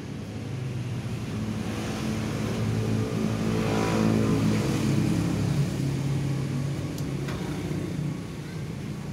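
A motor hum with several steady low tones that grows to its loudest about four to five seconds in, then eases off.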